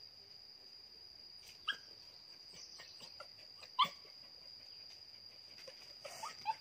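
Steady high-pitched drone of insects, with short high animal cries over it: one about two seconds in, a louder one near four seconds, and a quick run of them near the end.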